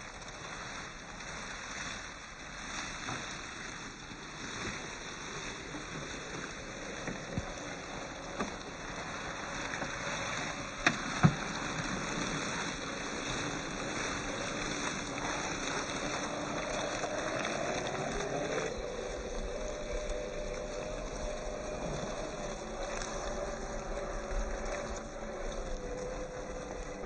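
Radio-controlled scale crawler's electric motor and gearbox whining as it drives over rough ground, the pitch rising and then holding steady after about 18 seconds, with scattered ticks and two sharp clicks at about 11 seconds.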